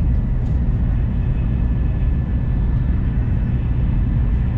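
Steady low rumble of a Taiwan High Speed Rail train running, heard from inside the carriage, with a faint steady high whine over it.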